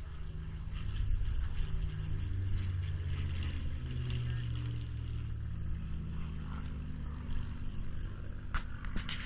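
Piston engine of a propeller aircraft droning overhead, its pitch shifting slightly as it flies past. A few brief knocks near the end.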